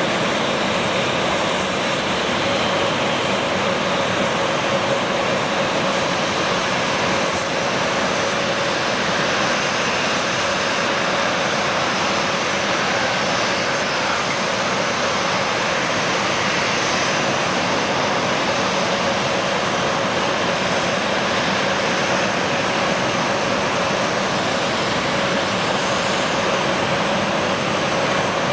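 Gulfstream G550's twin Rolls-Royce BR710 turbofan engines running steadily, a constant rushing noise with a thin high-pitched whine over it.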